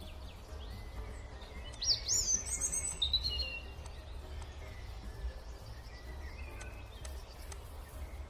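A short run of quick, high bird chirps about two seconds in, lasting a second or two, over a steady low hum.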